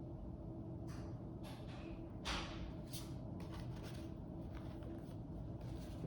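Low, steady room hum with a few brief, soft rustles. The loudest rustle comes a little over two seconds in.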